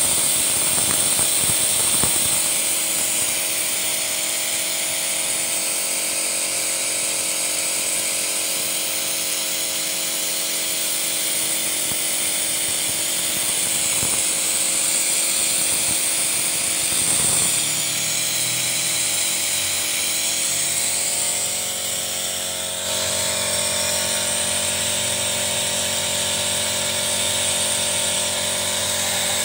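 Vacuum suction machine of an engine carbon-cleaning rig running steadily while it draws carbon-cleaner fluid out of the engine into its filter canister: an even hiss over a low hum, changing slightly in tone about 23 seconds in.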